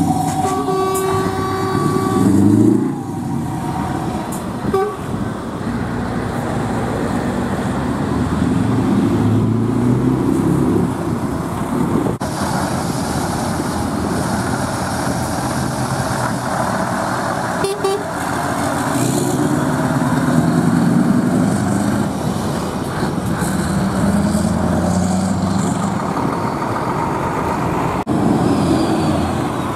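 Engines of Scania show trucks running through open exhaust pipes as the trucks drive past one after another, the deep rumble swelling and falling as they rev. A truck horn sounds with a steady chord of several notes from about half a second to two and a half seconds in.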